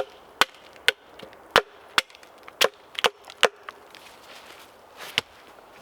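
Wood being chopped with quick, sharp strikes, about two a second, with a pause after three and a half seconds and one more strike near the end.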